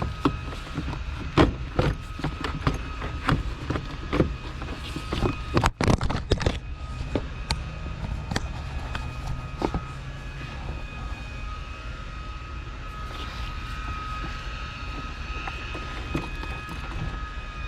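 Irregular clicks and knocks of parts being handled and fitted in a car's engine bay, over a steady low rumble and a faint high whine; the knocking thins out about ten seconds in.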